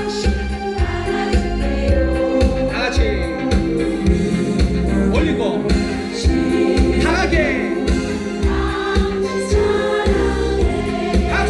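A group of voices singing a song together in unison over a backing track with a steady bass beat.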